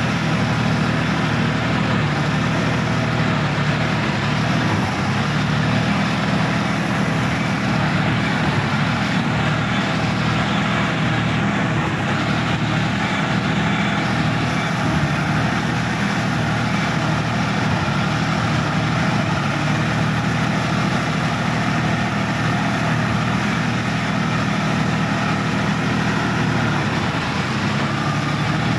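Sonalika DI-50 RX tractor's diesel engine running steadily at an even speed, heard from the driver's seat.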